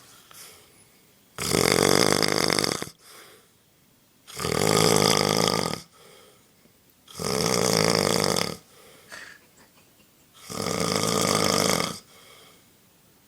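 Loud, regular snoring: four long snores about three seconds apart, each lasting about a second and a half, with quiet breathing pauses between them.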